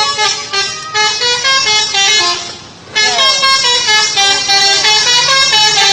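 Bus 'telolet' horn, a set of multi-tone air horns playing a quick stepping melody. It plays in two runs with a short break about three seconds in.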